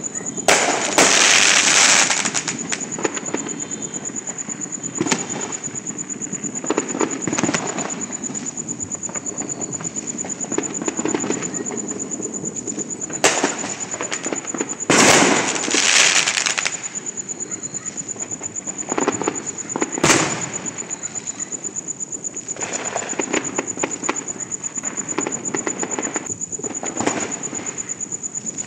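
Aerial fireworks and firecrackers going off across a neighbourhood. Loud bursts come about a second in and again around fifteen seconds, a single sharp crack around twenty seconds, and smaller pops in between, over continuous crackling and a steady high-pitched tone.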